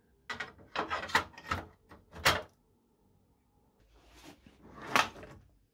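Tools clattering in the top tray of an Oxford metal tool chest as something is put back, then a drawer of the chest sliding open, swelling to a knock near the end.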